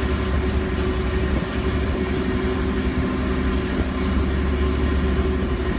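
Ferry's engines running steadily, a deep rumble with a constant hum, heard on board as it crosses the harbour.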